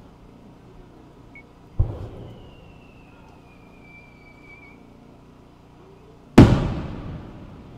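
Japanese aerial firework shell: a thud about two seconds in as it is fired from its mortar, a thin whistle sliding slowly down in pitch as it climbs, then a loud burst near the end with a long echoing tail.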